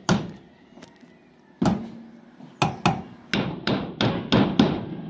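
A hammer striking a wooden plank that lies on a corrugated metal roof: three spaced blows, then from about halfway a quicker run of about eight blows, roughly three a second.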